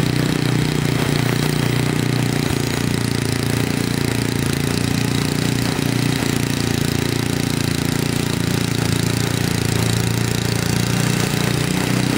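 A 1970 Sears Craftsman 8-horsepower snowblower engine running steadily under load as the machine clears snow, its carburettor freshly rebuilt.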